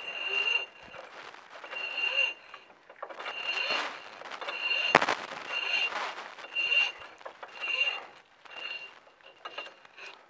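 Thin steel cable pulled through a hole in a hand-crank winch drum, about one pull a second. Each pull gives a short high squeak of wire sliding on metal and through gloved hands. One sharp click comes about five seconds in.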